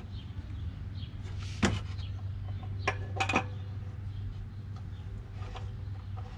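A few sharp clicks and knocks of parts and tools being handled while fitting the oil filter: one about one and a half seconds in, two more around three seconds. A steady low hum runs underneath.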